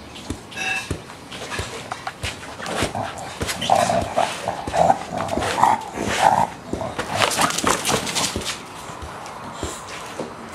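English bulldog playing with a torn soccer ball on concrete: repeated knocks and scrapes of the ball and the dog against the ground. Between about four and six and a half seconds the dog makes a run of short vocal sounds.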